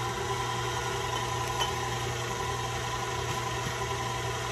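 Electric hand mixer running steadily at one speed, whisking the wet ingredients for cupcake batter.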